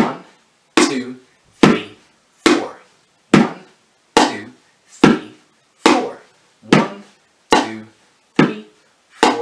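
Wooden spoons beating a makeshift kitchen drum kit of upturned pans and tubs in a slow, even beat. One drum is struck on beats one and three and another on two and four, giving about eleven hits a little under a second apart, each with a short low ring.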